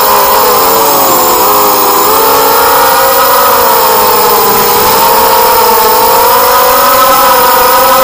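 DYS BE1806 2300kv brushless motors of a 180-size FPV racing quadcopter spinning HQ 4045 bullnose props, heard through the onboard camera: a loud whine of several tones that rise and fall and cross each other as the motors speed up and slow down in flight, over a steady hiss.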